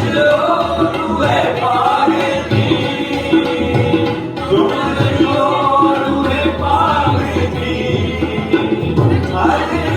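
Band music from a Hindi worship song: a melodic line over a steady, driving rhythm of hand drums and percussion.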